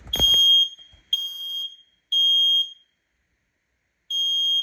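First Alert photoelectric smoke alarm sounding its test alarm: a loud, high-pitched beep in the three-beep pattern, three half-second beeps about a second apart, a pause, then the next round starting near the end.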